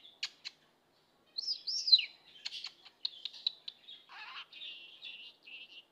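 Budgerigar whistling and chattering. A couple of sharp clicks open it, then a loud whistle that rises and falls about a second and a half in, then rapid clicks and a scratchy, buzzy chatter in which it mimics "bom dia, Zig".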